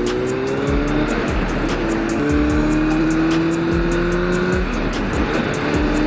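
2004 Honda CBR1000RR's inline-four engine through an aftermarket exhaust, accelerating: its pitch climbs, drops at a gear change about two seconds in, then climbs again, over steady wind rush on the helmet mic.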